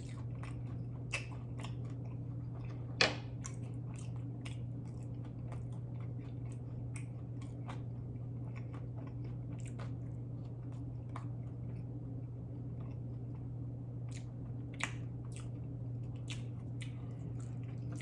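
A person chewing and biting food close to the microphone, with scattered sharp mouth clicks, the loudest about three seconds in, over a steady low hum.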